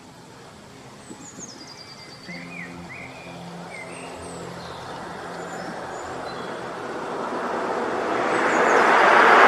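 A vehicle approaches and passes close by on the road, its engine and tyre noise swelling steadily to its loudest at the end. Birds chirp over it in the first few seconds.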